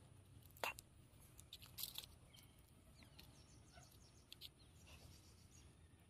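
Near silence with faint outdoor background, broken by a few short, faint clicks: one about half a second in, a cluster near two seconds, and another about four and a half seconds in.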